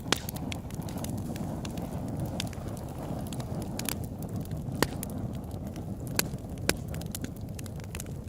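Campfire crackling: irregular sharp pops and snaps, a few louder ones, over a steady low rush.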